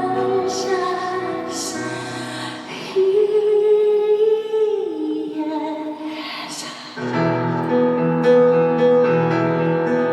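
Live song: a woman's singing voice over piano, holding a long note that steps down in pitch about five seconds in, then full piano chords come back in about seven seconds in.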